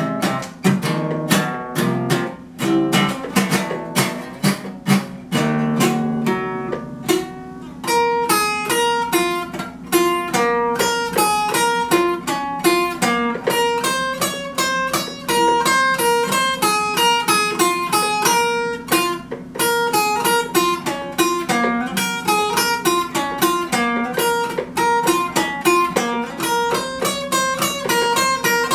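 Acoustic guitar played solo: strummed chords at first, then from about eight seconds in a quick, even pattern of picked single notes over a steady low note.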